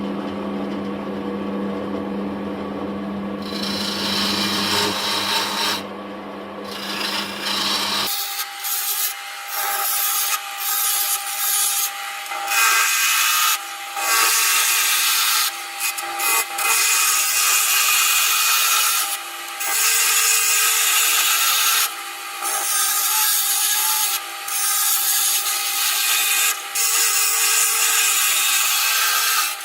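Wood lathe running while a bowl gouge cuts the spinning wooden blank: a scraping hiss that starts and stops as the tool is pushed in and eased off, in passes of a second or two. For the first several seconds the lathe motor's hum is heard under it; it drops away abruptly about eight seconds in.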